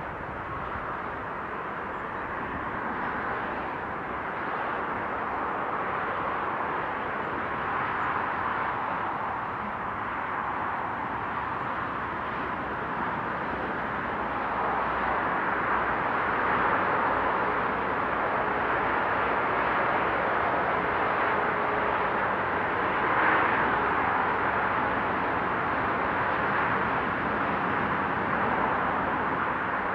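Cars and trucks crossing a motorway viaduct: a steady rush of tyre and engine noise that swells and fades as vehicles pass, loudest about two-thirds of the way through.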